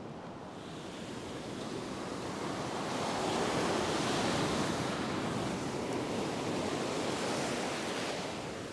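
Ocean surf breaking on a sandy beach: a steady rush of waves that swells to its loudest about halfway through and eases off near the end.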